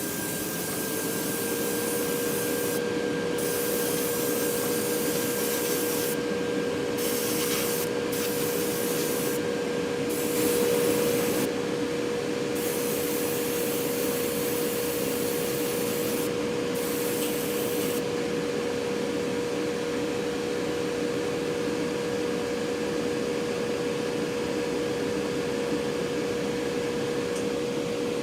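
Small airbrush compressor running with a steady hum, while spray from the airbrush hisses on and off in stretches as the paint is laid on.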